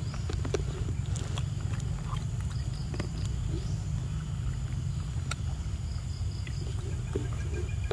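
Steady low rumble of wind on the microphone, with scattered soft clicks of a macaque biting and handling a ripe mango close by.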